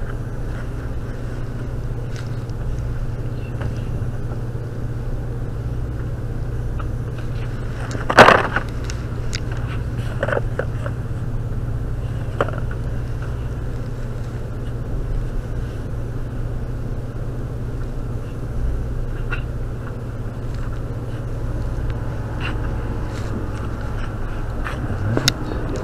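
Handling noise on a body-worn spy pen camera's microphone: clothing and handled items rustling and clicking against it over a steady low hum, with one sharp loud knock about eight seconds in.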